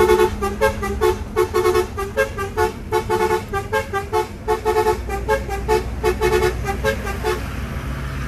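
A musical horn plays a fast tune of short, repeated notes and stops about seven seconds in. Underneath is the steady low drone of the truck's engine running in the cab.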